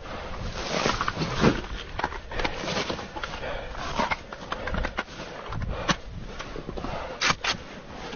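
Rustling, scraping and knocking of clothing and gear handled up close, with scattered sharp clicks throughout and two sharp cracks in quick succession near the end.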